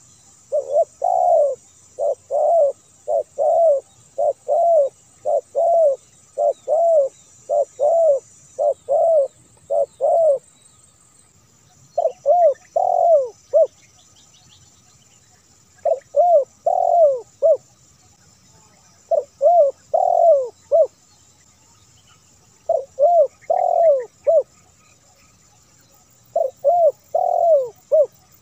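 Spotted dove (tekukur) cooing: a fast, unbroken run of coos for about the first ten seconds, then short phrases of several coos with pauses of about two seconds between them.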